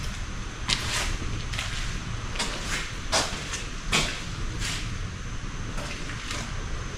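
Footsteps scuffing and crunching across a flood-damaged basement floor, irregular steps roughly every half second to a second, over a low steady rumble.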